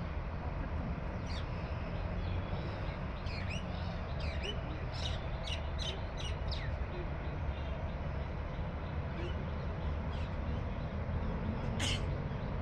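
Wild birds calling: a run of short, sharp calls in the middle and one loud call near the end, over a steady low rumble.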